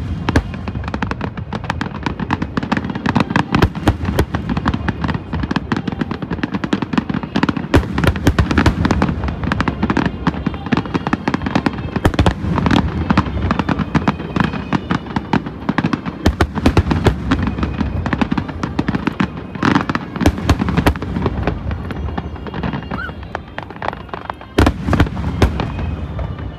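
Aerial fireworks display: a dense, continuous run of shell bursts and crackling, many a second, with a few louder bangs near the end.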